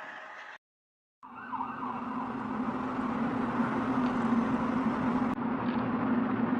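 Steady low droning hum with a noisy rumble under it, slowly growing louder, following a brief drop to dead silence about a second in.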